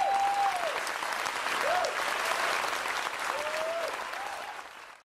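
Theatre audience applauding, with a few long whoops rising and falling in pitch over the clapping. The applause fades out near the end.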